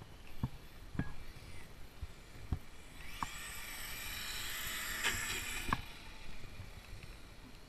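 An RC monster truck's brushless motor and drivetrain give a high-pitched whine for about three seconds in the middle as the truck runs on pavement, with a few sharp knocks scattered through.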